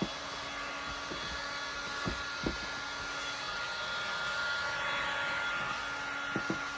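Handheld electric heat gun blowing steadily with a faint whine, warming vinyl upholstery so it softens and lays down over the seat foam. A few soft knocks about two seconds in and near the end.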